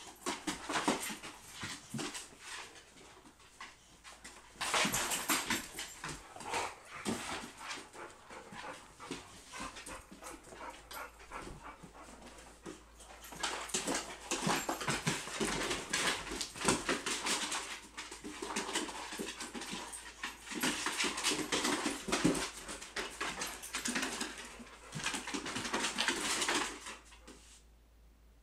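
A boxer and a pit bull puppy play-fighting, with dog vocal noises and claws scrabbling on a hardwood floor in irregular bursts. The noise dies down near the end.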